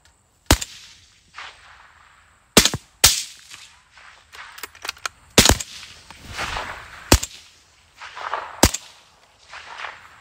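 Suppressed .223 AR-15 rifles firing on feral hogs: about six sharp reports at irregular intervals, two of them close together about three seconds in, with softer noise in between.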